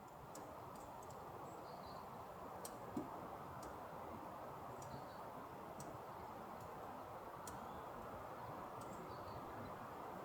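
Firewood crackling as it burns: sharp, irregular pops and clicks about once a second, one louder pop about three seconds in, over a steady low rushing noise.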